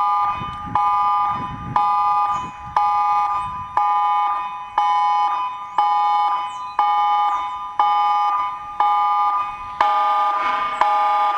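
New Zealand emergency alert (EAS) tone: a chord of three steady high tones repeating in pulses about once a second, each starting sharply and fading slightly before the next. Near the end, lower tones join and the chord grows fuller.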